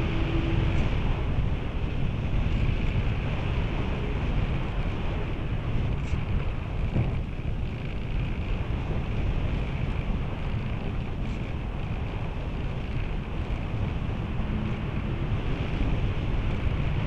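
Rushing airflow over a camera mounted on a radio-controlled soaring glider in flight: a steady wind noise, heaviest in the low end, with a hiss above it.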